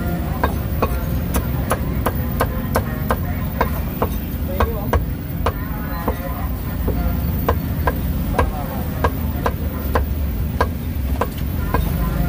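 Steel cleaver chopping roast pork on a thick wooden chopping block: a steady run of sharp chops, about two to three a second.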